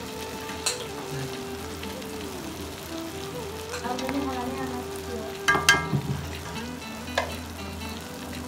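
Batter sizzling steadily as it deep-fries in hot oil in a black iron wok. A metal spatula clinks against the pan a few times, loudest in a short clatter about halfway through.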